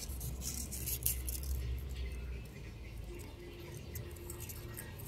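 Faint rustling and crackling of a mature acanthus flower being pulled off its flower spike and handled in the fingers, over a low rumble. The crackles thin out after about two and a half seconds.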